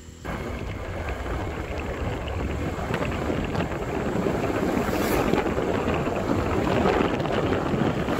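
Wind rushing over the microphone of a moving motorcycle, mixed with road and engine noise: a steady, even rush that starts abruptly just after the start and grows slightly louder.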